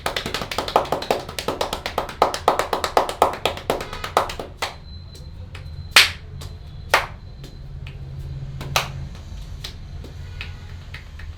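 Rapid hand strikes of a percussive massage, hands slapping and clapping about nine times a second for roughly four and a half seconds, then three single, louder slaps spaced about a second apart.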